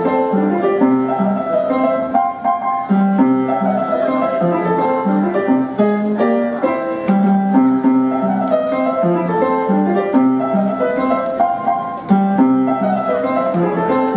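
Piano played live, a steady stream of notes with a moving bass line under chords and melody.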